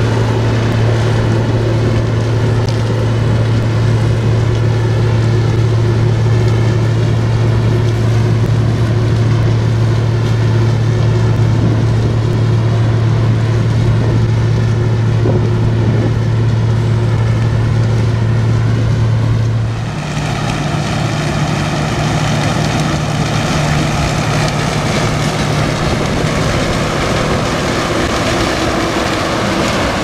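Claas Mega 360 combine harvester running steadily while harvesting sunflowers with its Oros header: a steady low engine hum under the noise of the machinery. About two-thirds of the way through, the sound cuts abruptly to a closer position, where the hum is higher-pitched and the hiss of the header and threshing is louder.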